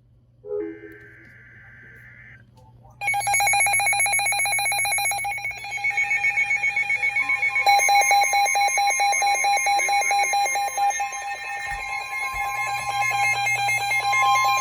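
Emergency alert tones: electronic alarm tones start suddenly about three seconds in and sound steadily, then turn to a rapid pulsing beep about eight seconds in. They signal the start of a new severe thunderstorm warning.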